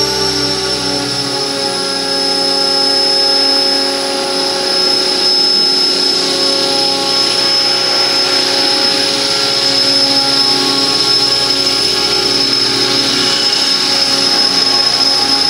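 Radio-controlled model helicopter (an Align T-Rex 600 in an Airwolf scale body) running at flight speed, with a steady high-pitched whine from its motor and rotors as it lifts off and flies.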